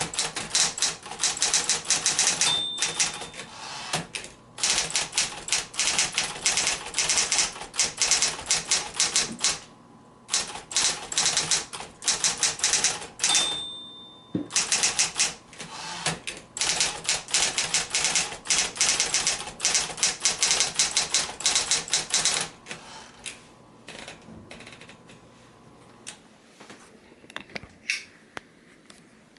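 1972 Smith-Corona Electra 120 electric portable typewriter being typed on in fast runs of key strikes. The line-end bell dings twice, each time followed by a brief pause. The typing stops about 22 seconds in, leaving a few scattered clicks.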